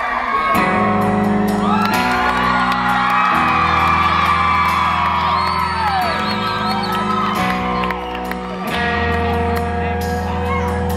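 Live rock band playing a passage without lead vocals: sustained electric guitar and bass chords that change every second or two, with audience members whooping and screaming over the music.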